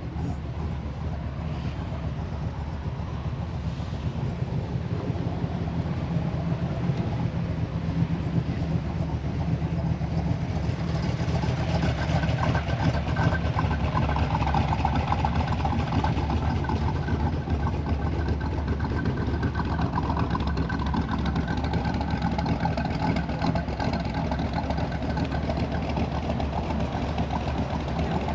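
An engine idling steadily, getting a little louder about ten seconds in, with a faint high steady tone over it for much of the time.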